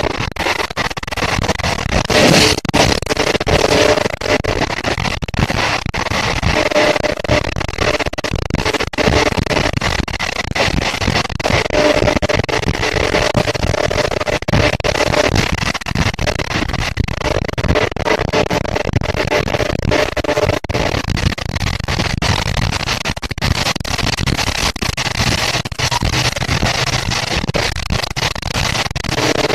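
Passenger train running at speed, heard at an open carriage window: a steady loud rumble and clatter of wheels on the track with rushing air. A humming tone comes and goes several times over it.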